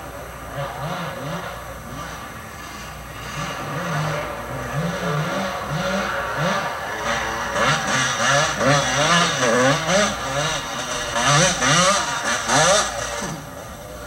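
Two-stroke motocross bike's engine revving up and down again and again as it rides through sand whoops. It grows louder as the bike approaches and passes close by near the end, then drops away.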